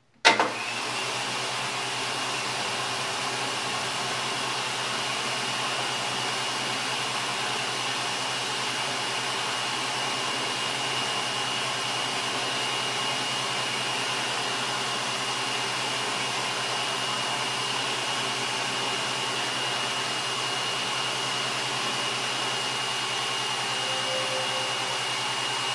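World Dryer Model A push-button hand dryer starting up suddenly and then running steadily on its timer cycle: a loud, even rush of blown air with a steady high whine from the motor and fan.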